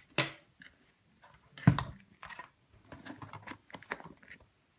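Hands handling plastic electrical gear on a table, pushing a plug-in wiring connector home and moving the dimmer controller: scattered clicks and knocks, with a heavier thump about 1.7 s in, then a run of small clicks and rustles.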